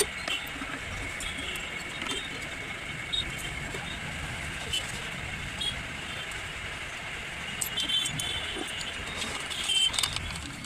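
Scattered metallic clicks and clinks of tools and small parts being handled while a chainsaw is dismantled, over a steady background hum. A cluster of clinks comes about eight seconds in and another near the end.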